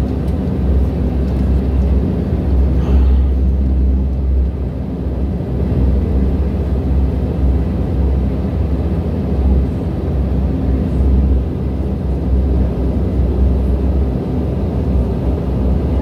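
Cabin noise of a Bombardier Dash 8 Q400 taxiing: a steady, deep drone from its Pratt & Whitney Canada PW150A turboprop engines and propellers.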